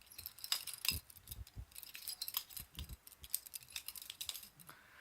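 Butterfly knife being flipped by hand: a run of irregular light metallic clicks and clinks as its handles swing and knock together.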